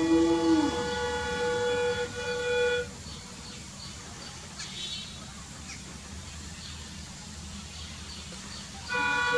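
Multi-tone air horn of an approaching Indian Railways WDP4D diesel locomotive. It sounds a long blast with a brief break about two seconds in and stops about three seconds in. After that the train's low engine and rail rumble carries on, and the horn blows again just before the end.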